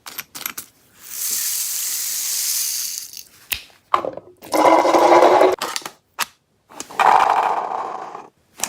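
Airsoft rifle firing two rapid full-auto bursts of about a second each, with a hissing stretch and scattered clicks of handling before them.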